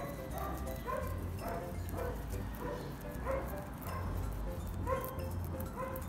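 Light background music, short plucked melody notes over a soft bass pulse, with faint crisp crunching of guinea pigs chewing fresh grass blades.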